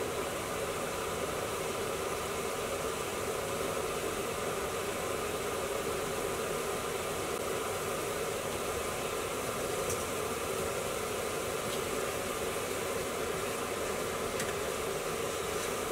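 Steady hiss of thick curry sauce bubbling and sizzling in a frying pan over a gas flame, simmering until the oil rises. Faint clicks about ten seconds in and near the end, as a spoon stirs the pan.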